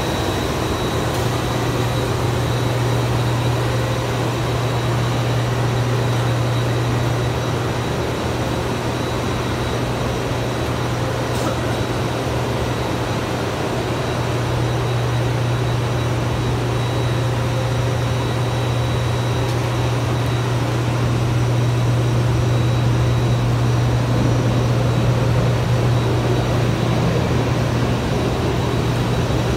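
Steady low machinery hum with a thin, faint high whine above it, unchanging throughout.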